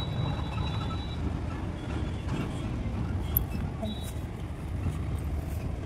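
Steady low rumble of road traffic, with a brief high-pitched tone near the start and another about four seconds in.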